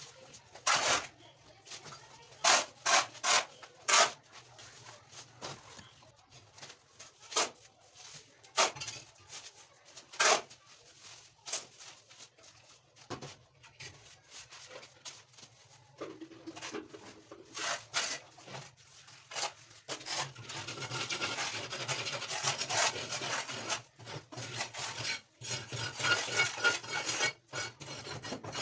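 Hand woodworking on a wooden frame: scattered sharp knocks and taps through the first half, then steady scraping from about two-thirds of the way in as the wood is sanded level.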